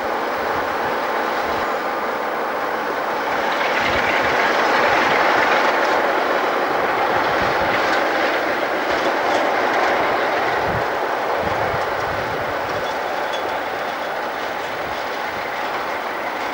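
Class 47 diesel locomotive running as it moves slowly over curved track and points, its engine growing louder about 3.5 s in and easing off after about 10 s. A few knocks from the wheels over rail joints come in the middle.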